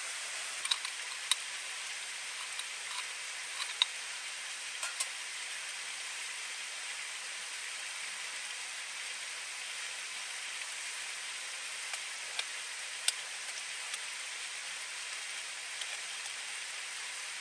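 Steady hiss of flowing river water, with scattered sharp clicks and taps from handling the metal tin-can stove and moka pot, most in the first five seconds and a few more about twelve to fourteen seconds in.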